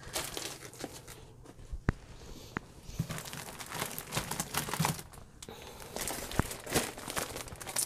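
Plastic-wrapped cross-stitch kit packages rustling and crinkling as they are handled, with a few sharp clicks.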